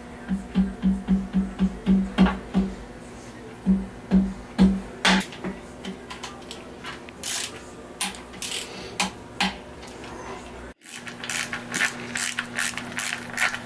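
Background rock music led by guitar, with a repeating bass note about three times a second. It drops out briefly near the end, then comes back fuller.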